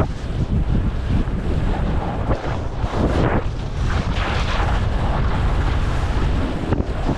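Wind buffeting the microphone over a steady low rumble, with corn stalks and leaves swishing past and louder rustling bursts about three and four seconds in.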